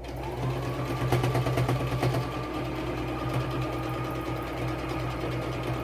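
Electric domestic sewing machine stitching fleece, its motor hum mixed with a rapid clatter of needle strokes. It speeds up as it starts, then runs at a steady speed.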